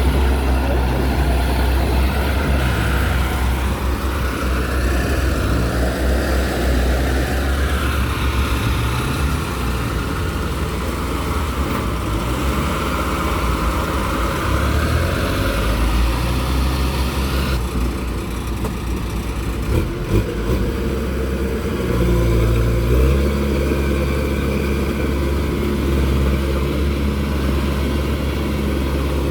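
Farm machinery engine running steadily, its pitch rising and falling as the load and revs change, with a shift in the sound about two-thirds of the way through.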